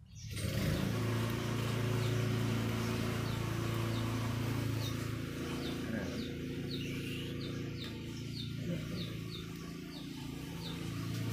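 A steady motor drone, a low hum with a hiss above it, starts abruptly. About three seconds in, a small bird begins chirping over it, roughly twice a second.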